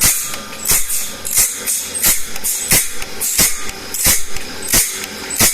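Saw blade being sharpened: a rasping stroke repeating evenly about every two-thirds of a second, each stroke starting with a sharp click.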